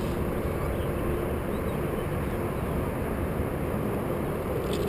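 A steady deep rumbling noise with no distinct events, carrying a faint steady hum.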